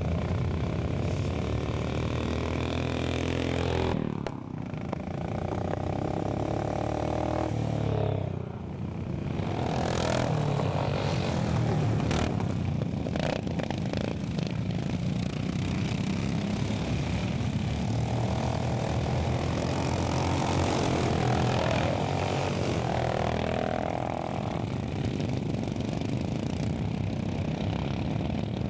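Small petrol engines of racing lawn mowers running hard, their revs rising and falling several times as the mowers pass, with a few sharp knocks near the middle.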